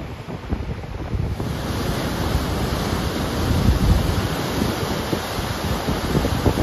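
Waterfall and river rapids rushing steadily, with wind buffeting the microphone in low rumbles. About a second in, the rush of water grows fuller and brighter.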